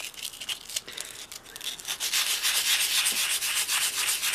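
Hand sanding of the dried white coating on a doll's head with a fresh piece of sandpaper. It starts as light, scattered rubbing, then from about halfway in turns into fast, steady back-and-forth strokes that are louder.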